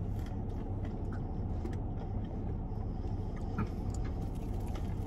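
Steady low hum of a car idling, heard inside its closed cabin, with a few faint clicks from eating and drinking.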